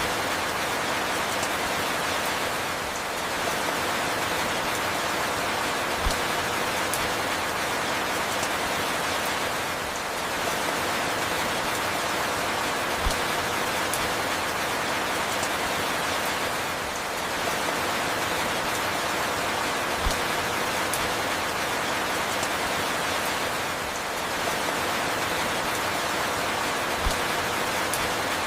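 Steady falling rain, an even hiss of drops, with a soft low thud about every seven seconds as the recording repeats.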